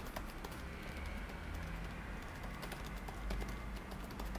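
Faint, scattered clicks of typing on a computer keyboard over a low, steady room hum.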